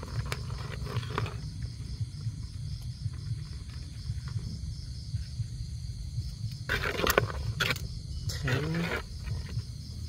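Night insects chirp steadily with an even, fast pulse over a low rumbling background noise. Brief rustling noises come about seven seconds in, and a short voiced sound rising in pitch follows near the end.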